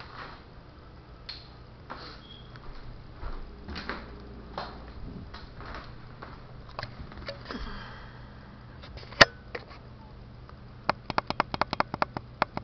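Low steady hum with scattered faint clicks and knocks, then one sharp click about nine seconds in and a quick run of about a dozen sharp clicks near the end.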